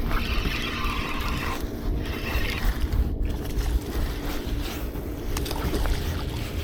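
Wind and water noise around a small fishing boat: a steady low rumble with a faint steady hum. A brief hiss comes in the first second and a half, and a shorter one about two seconds in.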